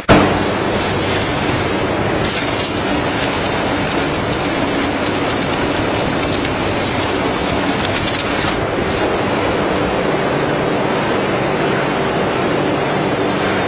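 Veneer splicer machine running: a steady mechanical clatter with a low hum, and fast rattling ticks from about two seconds in until past the middle. A brief sharp thump at the very start.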